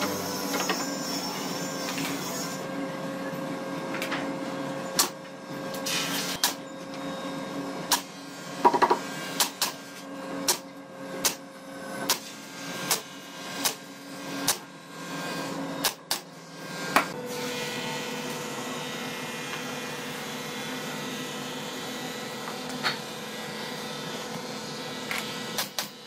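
Pneumatic brad nailer firing nails into a hardwood edge strip one after another, about fifteen sharp shots spaced under a second apart between roughly five and seventeen seconds in, over a steady machine hum.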